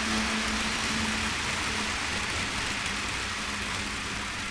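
Model train running on a layout track: a steady rushing rumble with a steady hum under it, slowly growing fainter.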